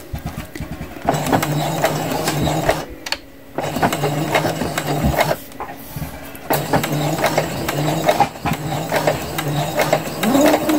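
Domestic electric sewing machine sewing a straight stitch, a steady motor hum under rapid needle strokes. It starts about a second in and runs in spurts, with a brief stop about three seconds in and another about five and a half seconds in.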